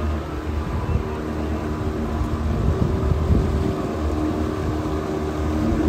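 Outboard motor of a passing jikkokubune canal tour boat running steadily, a low even hum, with water churning in its wake.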